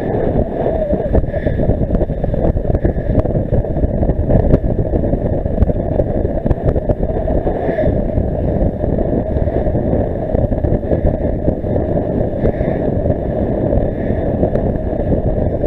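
Wind buffeting the microphone of a bike-mounted camera while riding, a steady low rumble with faint scattered clicks and rattles.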